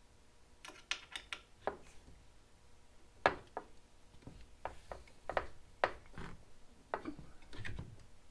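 Hand screwdriver turning the clamp screws of a roof-rack cross bar: scattered light clicks and scrapes, irregular, about a dozen over the stretch.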